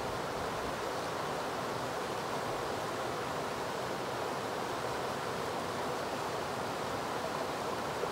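Steady rushing of a river's water flowing over a rocky riffle.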